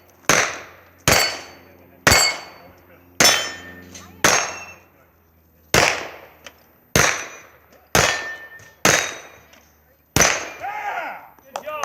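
Pistol shots fired one at a time, ten in all, about one a second with a slightly longer pause around the middle. Some shots carry a thin metallic ring.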